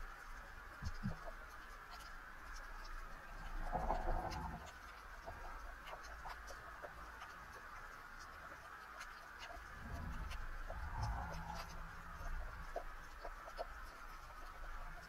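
Faint underwater ambience picked up by an action camera: scattered small clicks and crackles, with a low swishing rumble about four seconds in and another around ten seconds in.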